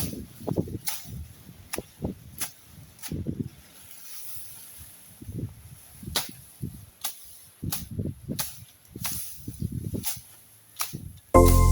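Irregular sharp clicks and snaps mixed with short low thuds, several a second and uneven, then music starts suddenly near the end.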